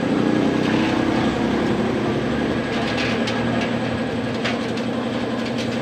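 A steady mechanical drone of a running engine or machine, holding an even pitch throughout, with a few faint light clicks in the middle.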